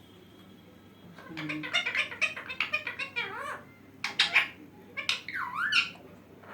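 Pet parrot chattering and squawking in a string of short talking-style calls, trying to copy the phrase just spoken to it. The calls start about a second in, with a couple of rising-and-falling swoops in pitch.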